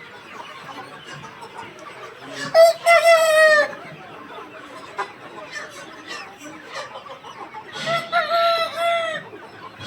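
Desi rooster crowing twice, each crow a little over a second long, over the steady clucking of a flock of chickens.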